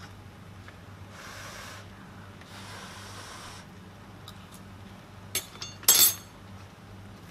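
A utensil scraping twice through fried rice in a pan, two soft rubs, then a few sharp clicks about five and six seconds in, the second the loudest.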